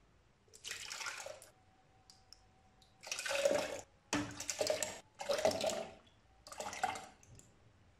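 Ladlefuls of tamarind and dried-plum sharbat poured into a plastic blender jar, splashing in five short pours.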